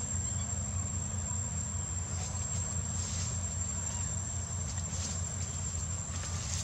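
Steady high-pitched insect drone over a low, steady rumble.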